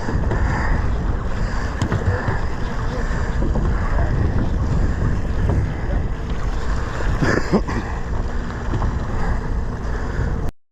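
Wind buffeting the microphone over the steady low rumble of a sportfishing boat and the sea, with a brief sharper sound about seven seconds in. The sound cuts off abruptly near the end.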